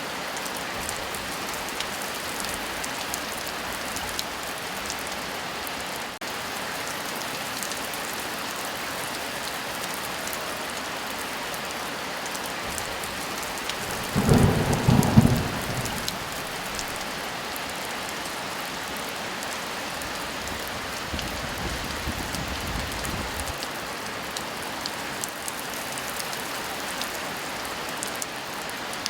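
Heavy rain falling steadily, with a loud clap of thunder about halfway through and a softer rumble of thunder a few seconds later.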